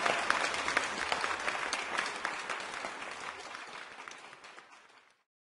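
Applause from a crowd, many hands clapping, fading out steadily over about five seconds to silence.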